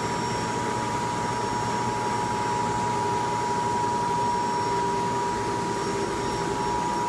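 Steady machinery noise of a fish farm's recirculating water-treatment equipment running: an even rushing hiss with a constant whine and a lower hum.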